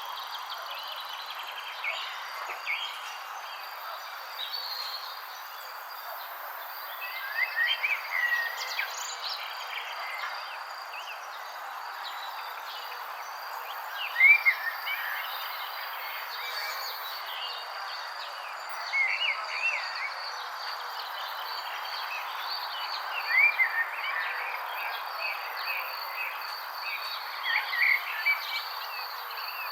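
Songbirds singing short, rising-and-falling phrases that come back about every four to five seconds, over a steady high insect trill and a constant outdoor hiss.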